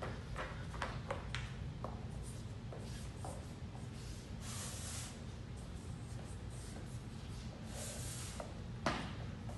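A rubber ViPR tube and sneakers knock and scrape on a wooden gym floor as the tube is pushed and rolled along, with light taps early on and two longer scratchy scuffs. A steady low hum sits underneath.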